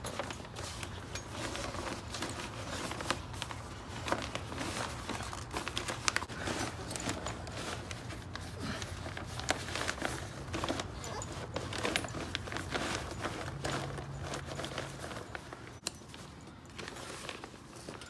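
Nylon fabric storage bag rustling and crinkling as it is pulled down over a folded EchoSmile collapsible wagon, with many small clicks and knocks from handling it.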